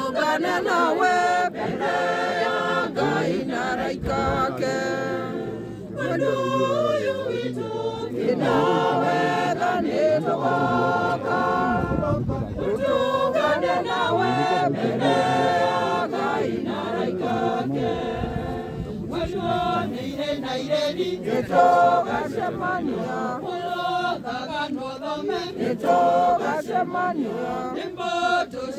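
A crowd of people singing together in chorus.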